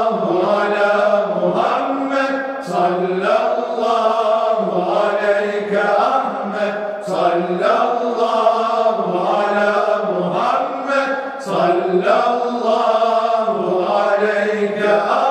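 Male choir singing a Turkish Sufi hymn (ilahi) in unison, chant-like, with long held notes phrase after phrase.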